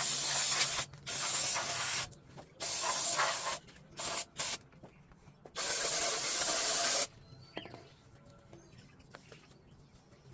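Aerosol brake cleaner spraying in short hissing bursts, about six of them, the last the longest and ending about seven seconds in.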